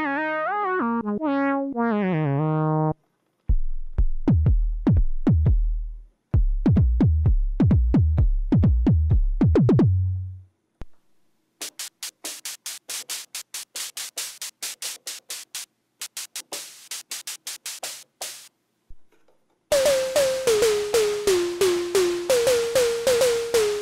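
Korg minilogue analog synthesizer played raw through a run of drum-like patches. A short falling run of notes comes first, then deep kick-drum hits that each drop in pitch. After a short gap come quick hi-hat-like noise ticks at about four a second, and near the end a noisy snare-like patch stepping down through a few notes.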